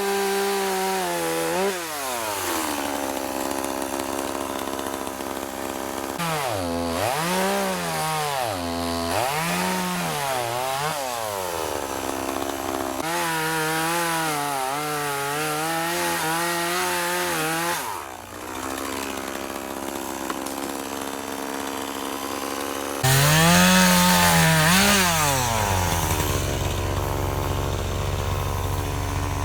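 Two-stroke chainsaw cutting into a large log: the engine revs up again and again, its pitch wavering and sagging as the chain loads up in the wood, then settling back to a steadier, lower note between cuts. About two-thirds of the way through, a low steady engine rumble joins in.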